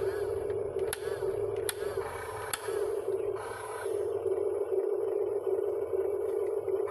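Excavator at work: a steady machine drone with a constant whine, and a few sharp clanks in the first three seconds.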